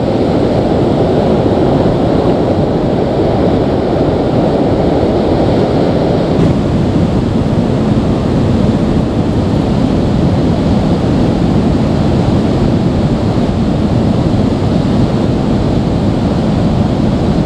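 Steady rush of a shallow, rocky river running over rapids and stones, loud and close to the microphone.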